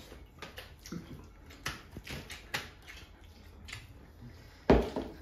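Two people eating rice and chicken curry by hand from metal plates, making short, irregular wet smacks and clicks of fingers, lips and chewing. One loud thump comes near the end.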